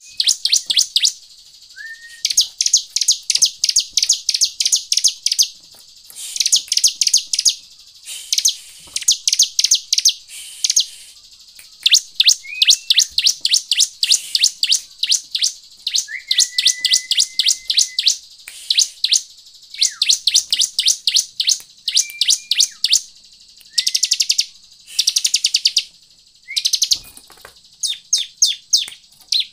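Bar-winged prinia (ciblek) calling in rapid runs of sharp, high chips, each run lasting one to three seconds with short breaks between. Now and then there is a short, lower whistled note.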